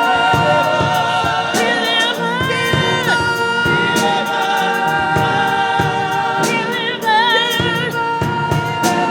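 Gospel music: singing voices holding long notes with vibrato over a band with regular drum hits.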